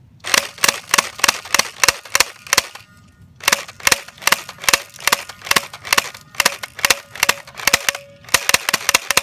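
Battery-powered Well D93 electric airsoft Uzi firing BBs in a steady string of sharp clicking shots, about three or four a second, with a short pause about two and a half seconds in.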